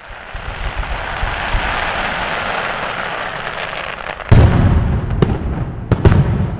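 Fireworks: a steady hissing fizz, then a loud deep bang a little over four seconds in, followed by a few sharp cracks.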